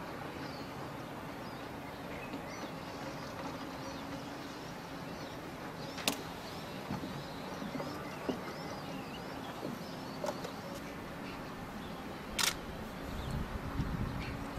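Outdoor ambience: faint chirping of small birds over a steady low hum, with two sharp clicks, about six and twelve seconds in, and a low rumble near the end.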